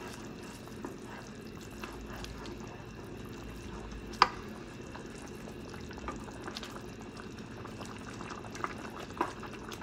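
Semolina stirred into boiling water and spinach in a nonstick frying pan with a wooden spatula, stirred continuously so lumps don't form: a steady bubbling with the spatula scraping through the mixture and a few light taps, and one sharp knock about four seconds in.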